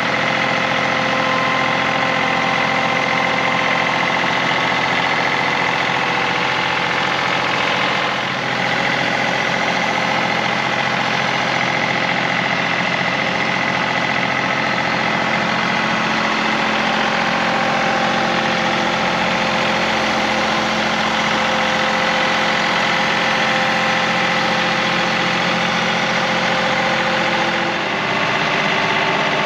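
Compact tractor engine running steadily, with brief dips in level about eight seconds in and again near the end.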